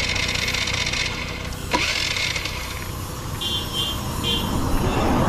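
Honda Activa scooter's single-cylinder engine being cranked by its electric starter without catching, with a click and a short break a little under two seconds in. The mechanic says the engine is not building compression.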